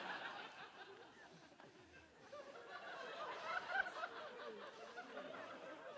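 Audience laughing: scattered chuckles from a crowd, swelling a little about halfway through.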